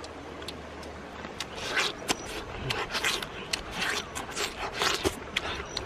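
Irregular scraping and rubbing sounds: a quick run of short strokes beginning about a second and a half in.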